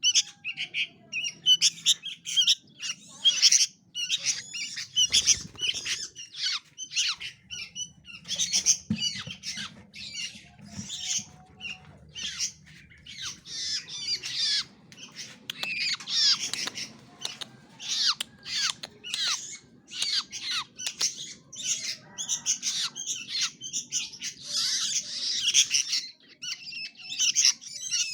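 Small caged songbirds making rapid, continuous harsh squawking and chattering calls.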